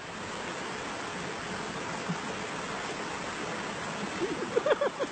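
Rushing creek water running steadily. Near the end a voice gives a quick run of short, rising cries.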